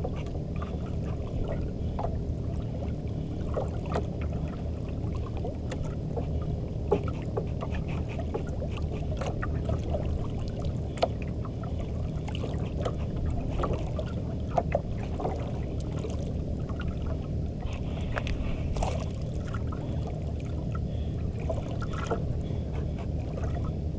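Steady low rumble aboard a small banka at sea, with water sloshing against the hull and scattered faint clicks.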